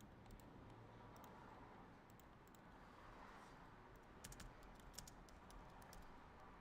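Faint computer keyboard typing: scattered key clicks, bunched together about four to five seconds in.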